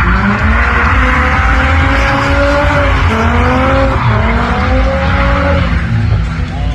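Drift car's engine revving hard, its pitch climbing again and again through repeated bursts of throttle, over loud tyre noise as the car slides sideways.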